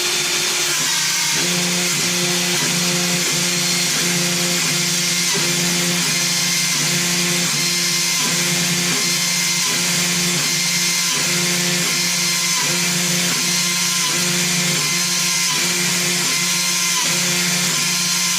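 Small CNC milling machine cutting a wooden keycap: the spindle's steady high whine, under a low motor hum that breaks off and restarts about once a second as the machine passes back and forth along its toolpath.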